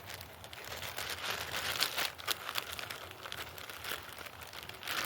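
Crinkling and rustling of packaging being handled, with irregular light clicks and crackles throughout.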